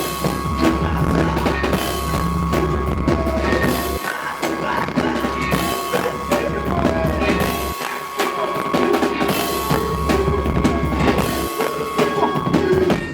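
Live rock band playing: a busy drum kit with snare and bass drum hits over long low bass notes and a steady high tone, the music stopping abruptly at the very end.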